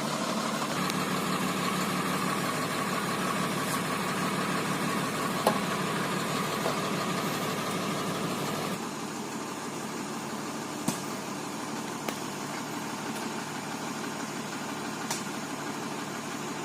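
A 4x4 truck's engine idling steadily, with a few faint clicks; it gets a little quieter about nine seconds in.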